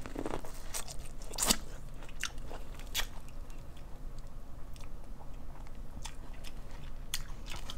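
Close-miked eating sounds: chewing and biting on seafood-boil food such as corn on the cob and peeled shrimp, with scattered short, sharp clicks and crackles.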